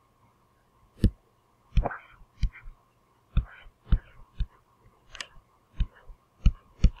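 A stylus tapping and scraping against a writing surface during handwriting: about ten sharp, thudding taps at uneven spacing, with brief scratchy strokes between some of them.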